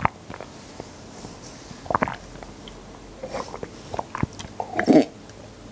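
Close-miked mouth sounds of eating drinkable konjac jelly: short, irregular chewing and swallowing noises, the loudest cluster near the end.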